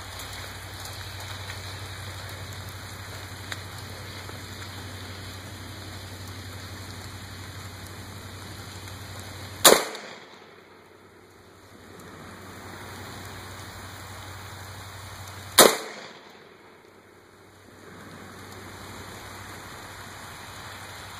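Two single shots from an AR-15 rifle, about six seconds apart, over a steady background hiss with a low hum. After each shot the background drops away for about two seconds.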